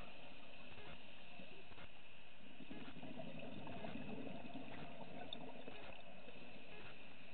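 Steady, muffled underwater noise heard through a camera's waterproof housing, with a faint swell of bubbling between about two and a half and four and a half seconds in.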